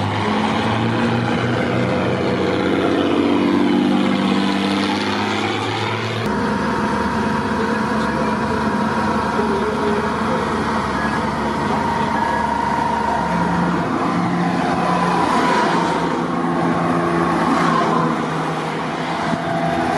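Heavy eight-wheeled armored vehicles driving past, diesel engines running with a low drone. In the first seconds the engine pitch slides down as a vehicle goes by. About six seconds in the sound changes abruptly to a steadier engine drone with a high, even whine.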